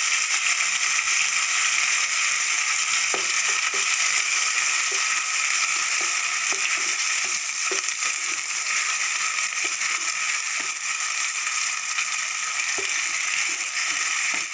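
Garlic, ginger and onion paste sizzling steadily in hot mustard oil, with light scrapes and taps of a spatula against the pan now and then.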